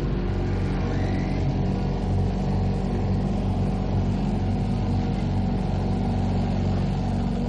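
Flying carousel ride running: a steady, loud low mechanical hum made of several even tones.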